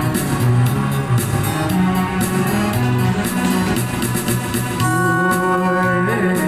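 Instrumental accompaniment for a Taiwanese pop song, with a steady rhythmic bass line and no voice. Long held notes come in higher up about five seconds in.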